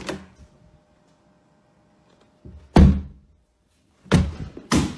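A door being thumped against its frame: four heavy knocks, the first at the start, one near the middle and the last two close together near the end.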